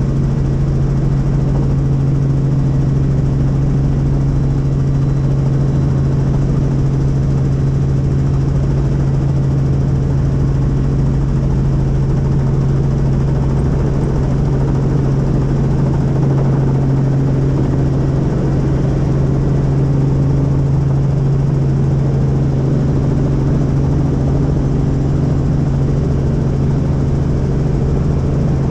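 Helicopter running steadily: a loud, unchanging drone of rotor and engine, dominated by a strong low hum with a rumble beneath.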